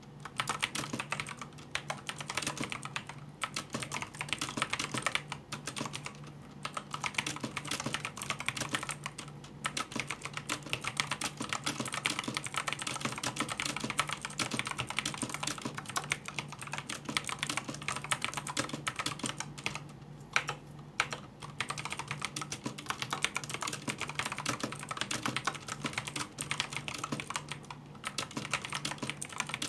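Signo KB-769 aluminium mechanical keyboard with Kailh Blue clicky switches being typed on fast and without let-up, a rapid clatter of sharp key clicks broken by a few short pauses. A low steady hum runs underneath.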